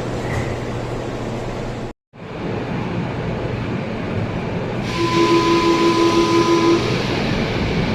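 Mexico City Metro door-closing warning buzzer: a rapid pulsing tone, about five pulses a second for just under two seconds, over the steady hum and hiss of a train standing at the platform. Earlier, the train sound cuts out abruptly for a moment and comes back.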